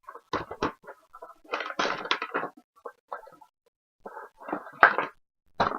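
A Funko Pop's cardboard box and plastic packaging being opened by hand: irregular bursts of rustling, scraping and clicking, loudest about five seconds in.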